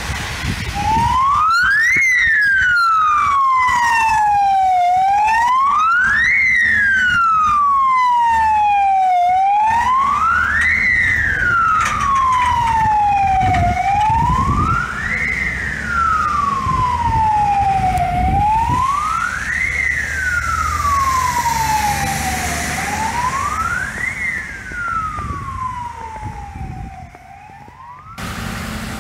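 Fire engine's siren wailing in slow cycles, each a quick rise and a long fall, about every four and a half seconds, over the low rumble of the truck's engine as it pulls out on an emergency call. Near the end it fades as the truck drives off, then cuts off suddenly.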